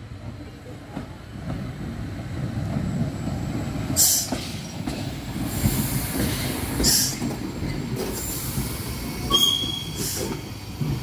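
Historic Chemins de fer du Jura locomotive Gem 4/4 No. 122 rolling slowly past at close range, with a steady low rumble from its running gear. Brief high wheel squeals come about four seconds in and several more times through the second half.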